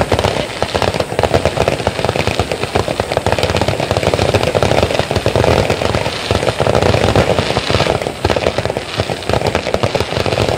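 Aerial fireworks crackling densely and continuously, a packed run of small pops with no single big burst standing out.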